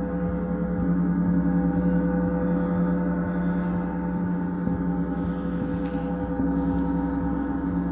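Two large gongs on a frame ringing in a dense, sustained wash of many overlapping steady tones, the level gently swelling and ebbing as they are played.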